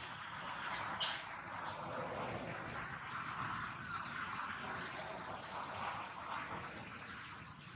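An insect's thin, steady, high-pitched trill, starting about a second in and stopping near the end, over a steady hiss, with a couple of small clicks.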